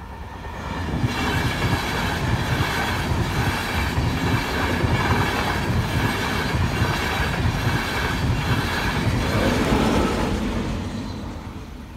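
Edinburgh express passenger train passing the crossing: a rush of wheels and air that builds over the first second, holds loud with a regular beat about every two-thirds of a second, and fades away over the last two seconds.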